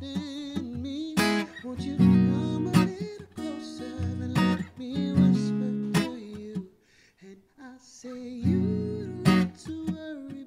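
Acoustic guitar strummed in a slow rhythm, with a man singing over it. The music drops away briefly a little past the middle, then comes back with a held chord.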